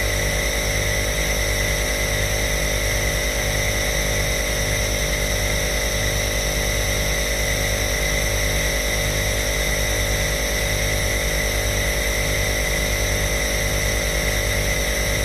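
Compressor nebulizer running steadily: a continuous motor hum and airy hiss with a regular low throb.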